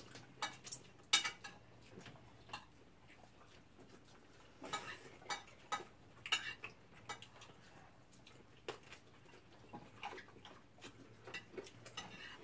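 Light, scattered clinks and taps of cutlery and dishes at a dinner table while people eat, at irregular intervals.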